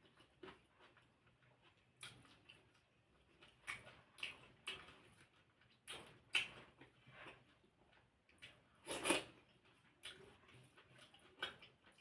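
Close-miked eating sounds: irregular short clicks and smacks of chewing, with the loudest burst about nine seconds in.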